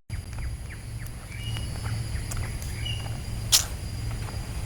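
Outdoor ambience: a steady low rumble with a few short, high bird chirps and a faint steady high-pitched tone. One sharp click comes about three and a half seconds in.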